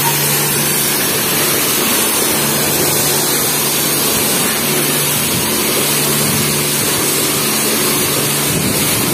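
High-pressure water spray from a self-service car-wash wand, hissing steadily, with a low hum coming and going underneath.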